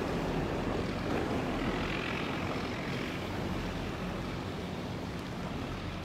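Engine of a squid fishing boat under way, a steady low drone under a hiss of wind and water, fading slightly toward the end.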